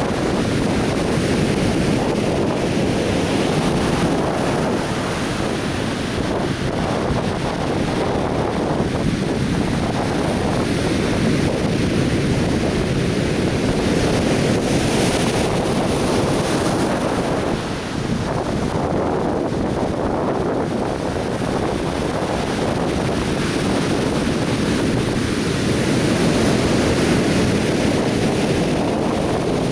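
Atlantic Ocean surf breaking and washing up a sandy beach in steady, gently swelling waves, with wind rumbling on the microphone.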